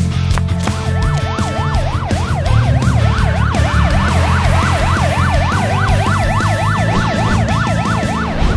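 Cartoon police car siren, its pitch sweeping rapidly up and down about three times a second, starting about half a second in, over upbeat background music with a heavy bass.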